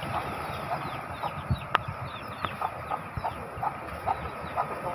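Short bird calls, most likely fowl, repeated two or three times a second over a steady rush of wind and waves. One sharp click comes a little under two seconds in.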